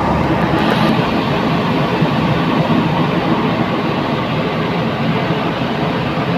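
Steady drone of a ferry's engines, mixed with rushing wind and sea noise on deck.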